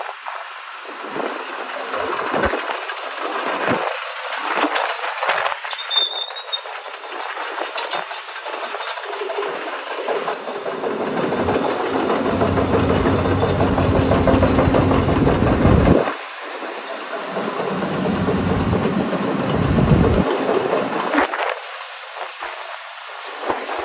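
Hyundai R230L crawler excavator running: a rough, clattering machine noise with a deeper engine note that builds over several seconds, stops suddenly about two-thirds of the way through, then comes back briefly.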